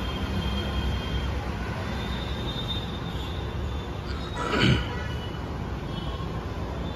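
Steady hum of road traffic from the street, with one brief louder sound about four and a half seconds in.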